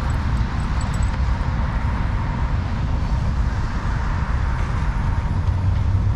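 Steady outdoor rumble of wind buffeting the microphone, mixed with distant road traffic.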